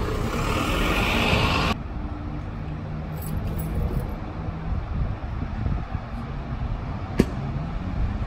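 City buses at a bus station: a loud hissing rush for the first couple of seconds cuts off suddenly, then a low engine drone as a bus idles and comes closer, with a single sharp click about seven seconds in.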